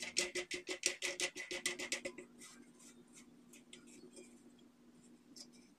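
Plastic lock nut spun by hand onto the threaded plastic inlet shank of a toilet tank's float valve: a quick run of light clicks and scraping, about eight a second, that slows and fades after about two seconds.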